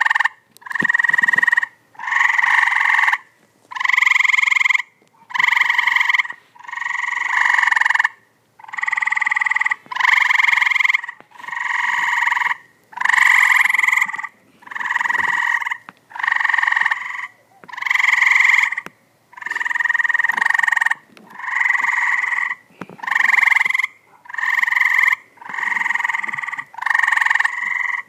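Tree frogs calling from a pool: a steady series of loud calls, each about a second long, repeated every second and a half or so with short gaps between.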